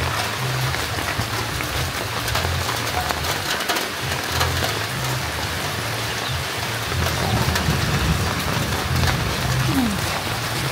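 A steady, even hiss of noise with a low, uneven pulsing hum beneath it.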